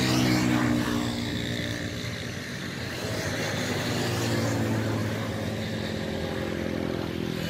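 A motor engine running, its pitch shifting up and down, loudest at the start and again about halfway through.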